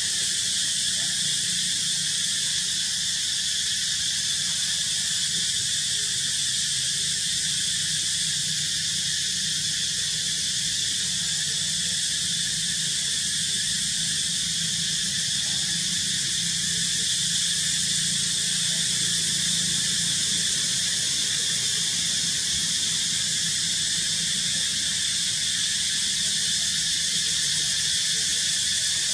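A continuous, high-pitched insect drone, such as a chorus of cicadas, holding a steady level throughout.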